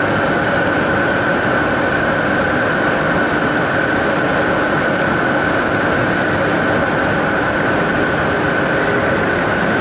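RENFE train moving slowly through the station under overhead wires: a steady hum of running gear with a steady high whine over it.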